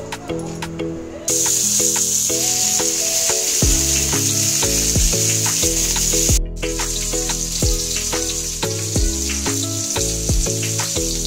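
Fish pieces shallow-frying in hot oil in a pan, a steady sizzle that starts about a second in and breaks off briefly near the middle. Background music with a beat plays throughout.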